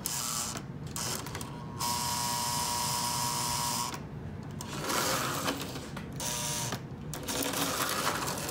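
Shell-less postwar Lionel locomotive motor whirring and gear-grinding on the track. It stops dead and starts up again several times as the power is cut and restored, cycling the E-unit reversing unit, which now shifts properly after its drum was serviced.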